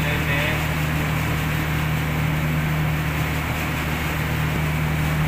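Steady low machinery hum, an even drone that does not change.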